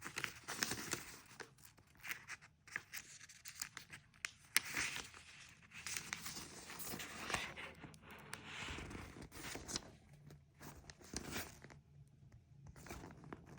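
Pages of a paper instruction booklet being leafed through: quiet, irregular rustling and crinkling of paper with scattered soft clicks.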